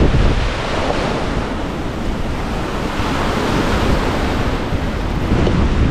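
Surf from a rough sea washing ashore, swelling about three seconds in, with wind buffeting the microphone.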